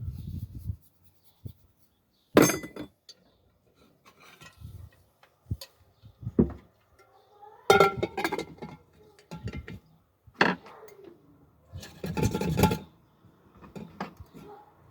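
Metal pan parts clinking and knocking against each other as they are handled, in a string of separate sharp strikes with short scraping clusters between quiet gaps.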